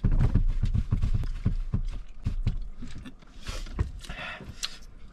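Water glugging from a plastic bottle as a man drinks in quick gulps, a rapid run of low pulses that fades out after about two seconds. Then come a couple of hard, airy breaths out, as after eating very hot chilli wings.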